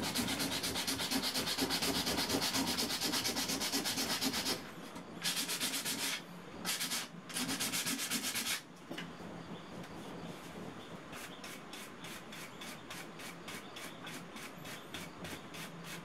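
Sandpaper rubbed by hand back and forth over a freshly set lacquer-based wood-filler patch on a wooden block. Quick continuous strokes for about four and a half seconds are followed by three shorter bursts. Then come lighter, quieter strokes at about three a second.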